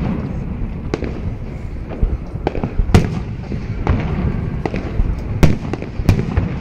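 Fireworks display: a quick, irregular series of sharp bangs, about a dozen in six seconds, over a steady low rumble. The loudest bangs come about three seconds in and again about five and a half seconds in.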